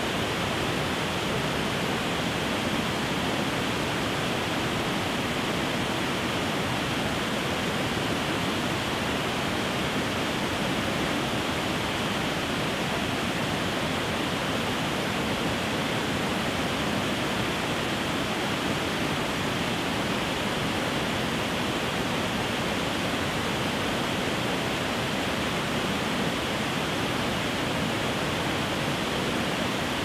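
Water rushing over a series of low, stepped river cascades: a steady, even rush that does not change.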